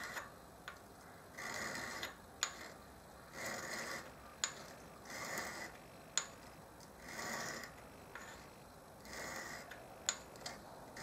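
Sharpening stone rubbed by hand over the top rake face of a high-speed-steel lathe tool: faint scraping strokes about every two seconds, each about half a second long, with sharp ticks between strokes.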